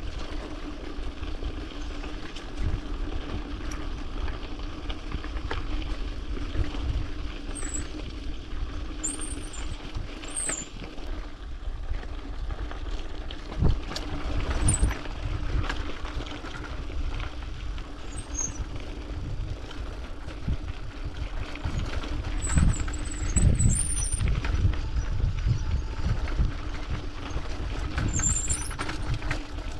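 Mountain bike rolling downhill over a rough dirt and gravel track: tyres crunching, frame and parts rattling and thumping over bumps, with a few short high squeals from the brakes.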